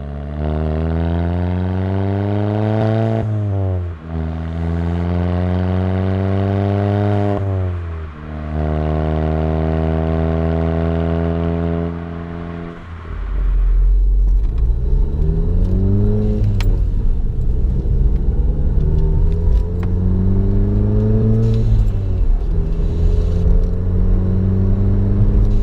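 VW GTI Mk7's turbocharged four-cylinder with an APR downpipe, accelerating through the gears: the revs climb and drop sharply at each upshift, about three times. About halfway through, the sound turns to a deeper exhaust rumble, with the revs rising and easing as it drives on.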